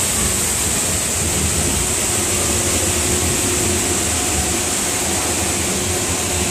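Steady rushing of a waterfall pouring close beside a moving monorail car, mixed with the car's running noise. A faint steady tone joins in about a second in.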